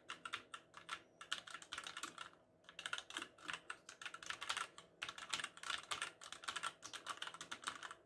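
Typing on a Motospeed GK82 tenkeyless mechanical keyboard with brown switches: a fast, dense run of keystrokes, with a short pause about two and a half seconds in.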